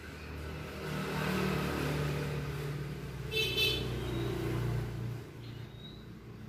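A motor vehicle engine rumbling as it passes, growing louder over the first seconds and fading out about five seconds in, with a short high beep in the middle.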